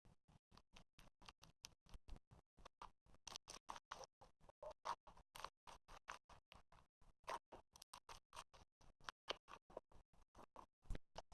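Slime being squished and worked by hand, giving a fast run of faint clicks and pops, about five a second, a little louder in the middle.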